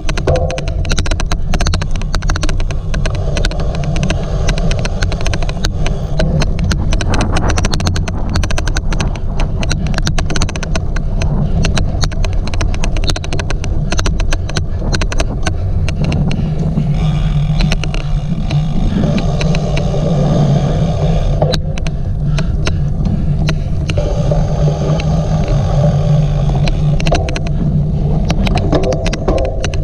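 Cyclocross bike ridden at race pace: a heavy low rumble of wind and rolling noise, with a fast, irregular clicking all through it. A pitched hum rises and fades twice in the second half.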